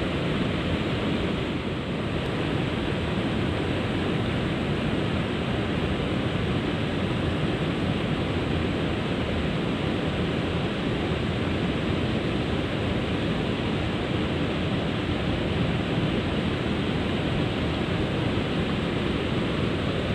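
Steady rushing of water spilling over a river weir, an even, unbroken roar.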